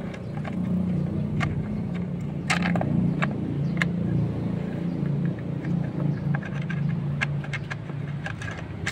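Light metallic clicks and scrapes of an Allen key turning the screws on a cast metal AdBlue unit's cover. Under them runs the steady low hum of an engine, a little louder from about one to three seconds in.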